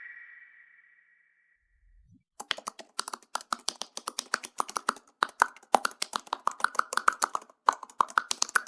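A fading tail of the previous sound effect, then a second or so of silence, then a fast, irregular run of sharp clicks, about eight a second, with a brief break near the end.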